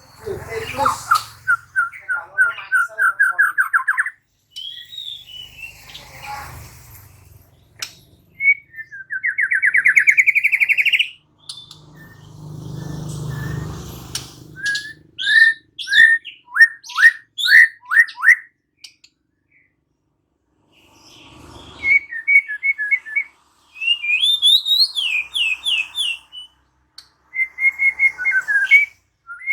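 White-rumped shama (murai batu) singing loud, varied phrases: fast trills of repeated notes, one of them rising in pitch, and sharp down-slurred whistles, with short pauses between phrases.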